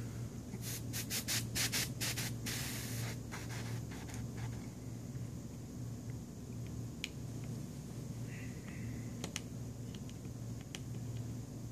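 Small precision screwdriver driving tiny screws into an LG G3's plastic midframe: a quick run of scratchy strokes in the first few seconds, then a few scattered light clicks, over a steady low hum.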